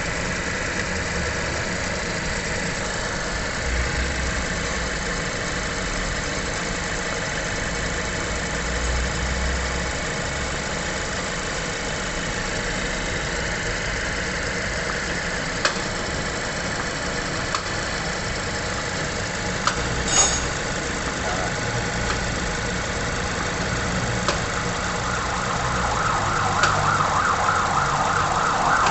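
Mazda 3 engine idling, run so the freshly added automatic transmission fluid circulates. It is a steady running sound with a few light clicks midway, and it grows louder over the last few seconds.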